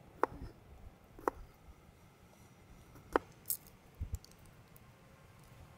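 Fingernails picking the papery skin off garlic cloves: a handful of sharp, scattered clicks and crackles.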